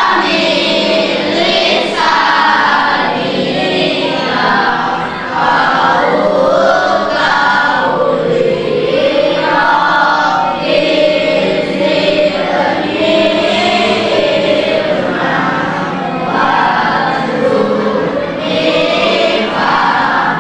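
A class of schoolchildren singing a song together as a group.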